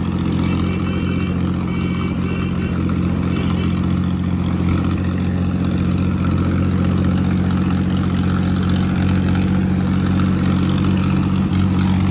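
Mahindra 265 DI tractor's three-cylinder diesel engine running at a steady speed.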